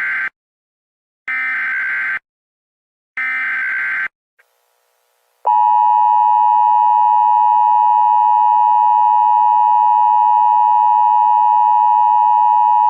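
Emergency Alert System SAME header: the tail of one short burst of warbling digital data tones and two more, each about a second long with a second of silence between, encoding the alert. About a second and a half after the last burst, the EAS attention signal starts: a loud, steady two-tone beep that announces an emergency alert and holds on.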